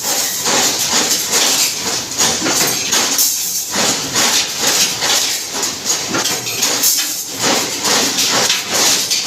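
Prima+ construction machine running, giving a loud hiss in rapid rhythmic pulses, about two to three a second, with a brief lull about three seconds in.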